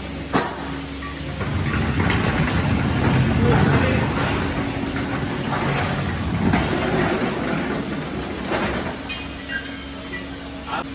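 A wheeled steel rack hung with motorcycle parts is pushed across a concrete floor into a powder-coating curing oven, rumbling and rattling as it rolls. A sharp metal knock comes about half a second in. The rumble is loudest from about two to five seconds in and eases off later.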